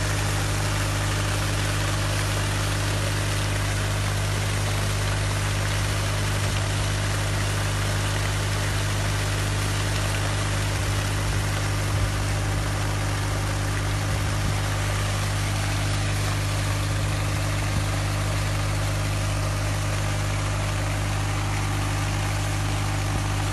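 Well-drilling rig's engine running steadily, with water gushing from a discharge hose and splashing onto the ground as a newly drilled water well is pumped out.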